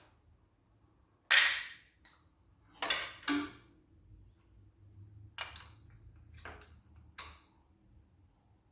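Hand tools knocking and clanking against metal engine parts: one loud sharp clank about a second in, two more a second and a half later, then several lighter knocks.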